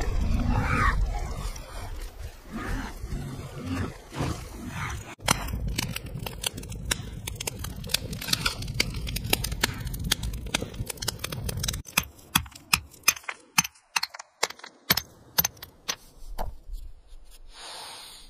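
Sound effects: a low rumble with rough, grunt-like animal calls, and many sharp clicks and knocks. About twelve seconds in the rumble drops away and the clicks stand alone, spaced and irregular.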